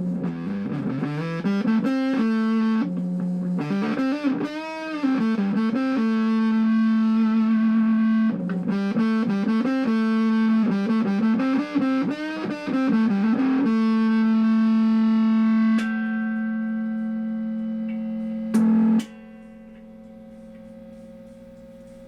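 Hofner 459 VTZ electric guitar played through an amplifier: bent notes with wide vibrato, then a long held note. About nineteen seconds in, a short loud burst and the guitar cuts out, leaving a steady mains hum.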